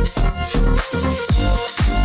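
Electronic dance music, house-style, with a steady beat of about two strokes a second under sustained synth tones.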